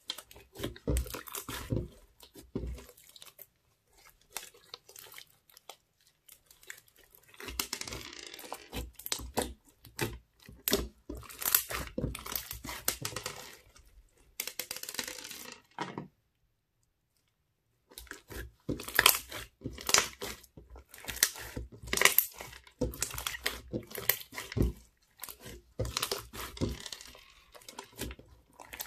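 Hands squeezing and stretching crunchy bead-filled slime: runs of sharp, wet crackles and pops, with a quiet stretch early on and a brief dead-silent break about halfway through.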